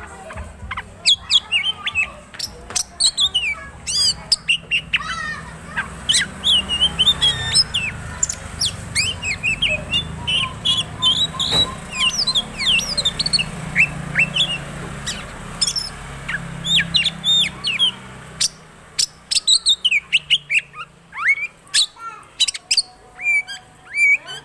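Oriental magpie-robin (kacer) in full song: a fast, ever-changing run of whistles, chirps and trills that includes mimicked calls of other birds.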